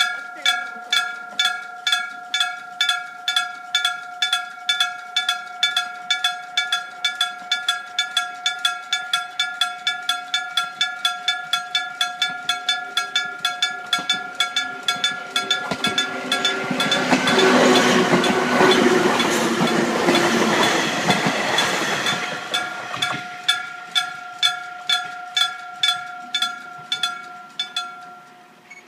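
Japanese railway level-crossing warning bell ringing steadily at about two strikes a second. A train passes through the crossing partway through, its wheels and running noise the loudest part for several seconds. The bell stops near the end once the train has cleared.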